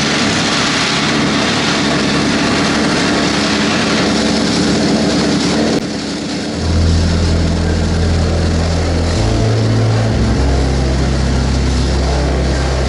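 The engine of a homemade moped running just after starting, a rough, high-pitched noise for the first six seconds or so. It then drops to a lower, steadier note that shifts in speed a couple of times.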